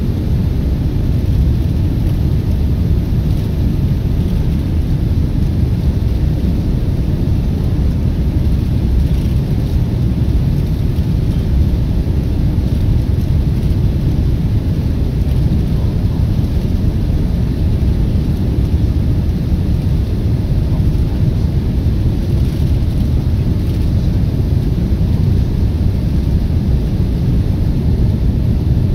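Steady low rumble inside a Boeing 787-9's cabin on descent to land: engine and airflow noise, even and unbroken.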